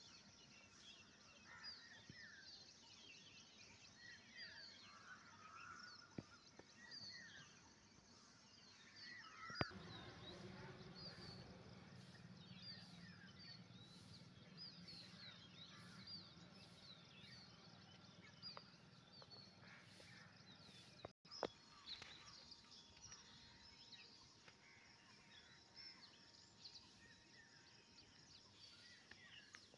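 Faint chirping of many small birds, short calls overlapping throughout. About ten seconds in there is a brief knock, followed by a low hum for a few seconds.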